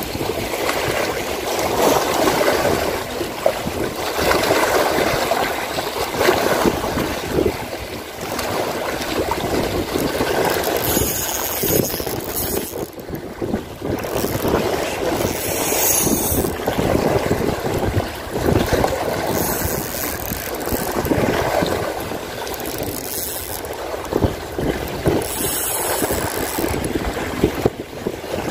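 Sea waves washing and splashing against shoreline rocks, swelling and easing, with wind on the microphone.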